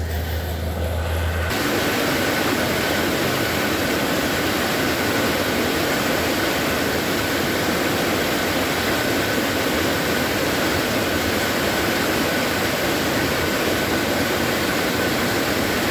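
Muddy floodwater pouring out of a culvert and cascading into a swollen creek: a loud, steady rush that starts about a second and a half in, after a quieter low hum.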